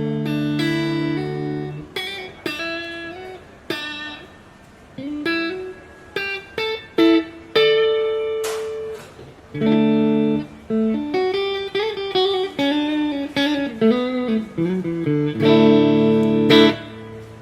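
Electric guitar, a PRS SE Custom 22 Semihollow, played through a Mesa/Boogie Triple Crown TC-50 tube amp head: a held chord at the start, then short single-note phrases and chords. Near the end a chord rings out and is cut off suddenly.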